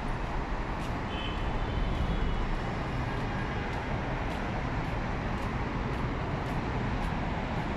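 Steady city traffic noise: the constant rumble of cars and buses on a busy road.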